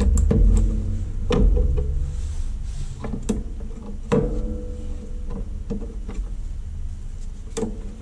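Irregular clicks and knocks of plastic and metal as a laptop-style blower cooling fan and its heatsink are lifted and handled out of the chassis, with low handling rumble and a faint steady hum underneath.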